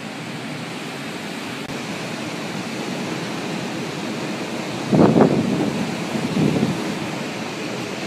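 Hurricane wind and surf making a steady rush of noise, with louder gusts buffeting the microphone from about five seconds in.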